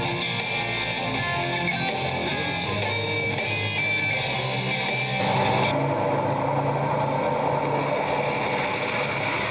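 Soundtrack music led by electric guitar. About five seconds in, the sound turns denser and noisier.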